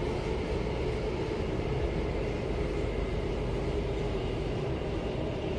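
Steady running noise of a metro train heard from inside the carriage: an even rumble with a faint hum.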